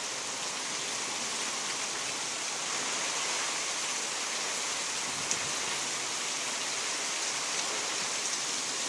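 Heavy tropical-storm rain pouring steadily, an even hiss of downpour.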